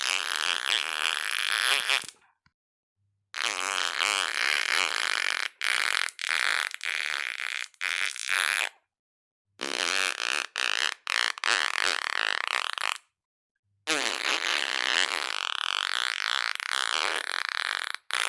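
Fart sounds in four separate runs with dead silence between them, each with a wavering, rippling pitch. The first ends about two seconds in. Longer runs follow from about three, ten and fourteen seconds in, the middle two broken into several short blasts.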